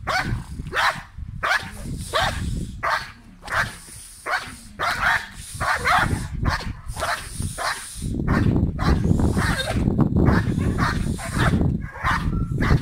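Belgian Malinois barking in a rapid, steady string of sharp barks, about two a second, while straining on the leash at a protection-training helper. A low rumble joins the barking about eight seconds in.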